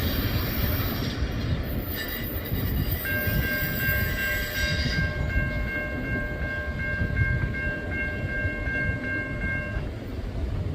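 Norfolk Southern train rumbling past on the rails, with a locomotive air horn sounding a chord held for about seven seconds, starting about three seconds in, with a few brief breaks.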